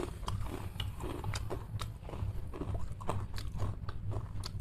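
A man chewing a mouthful of potato chips close to the microphone, with short crisp crunches about three to four times a second over a low background hum.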